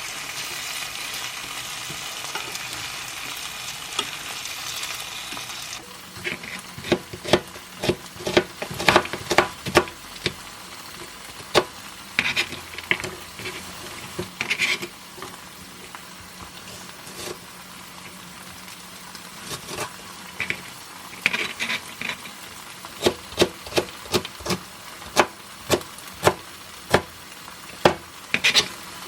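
Tofu slices sizzling as they pan-fry, the sizzle cutting off about six seconds in. Then a run of kitchen clinks and knocks, some of them ringing briefly like utensils or dishes struck together.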